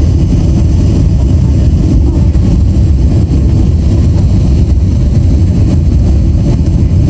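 Steady, loud cabin noise of a Boeing 767-300ER on landing approach: the low rumble of engines and airflow heard from inside the cabin at a window seat.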